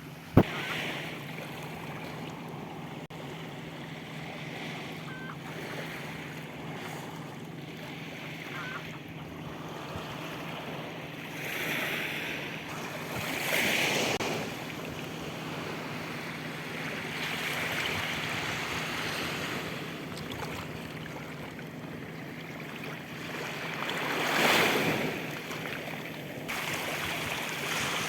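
Sea surf washing onto a beach, a steady rush that swells louder several times as waves break. There is a single sharp knock just after the start.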